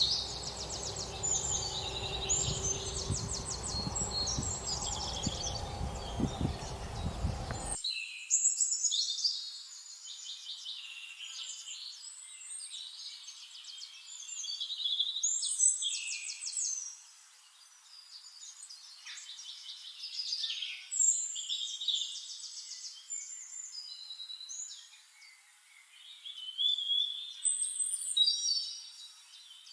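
Several songbirds chirping and singing, with many fast, repeated trills and short high calls overlapping. For the first eight seconds or so a low background rumble sits under the birdsong; it cuts off abruptly, leaving only the birds.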